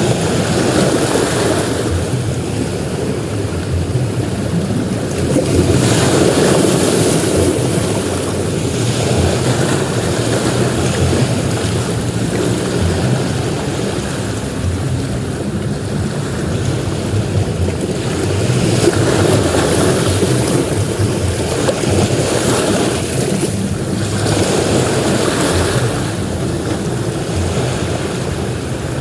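Ocean surf breaking on a beach: a steady wash of waves that swells louder as each wave crashes, a few times over the stretch.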